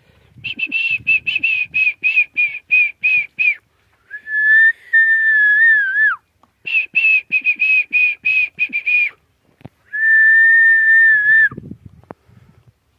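A person whistling: a quick run of about a dozen short high notes, then one long held note that drops away at its end, the pattern played twice.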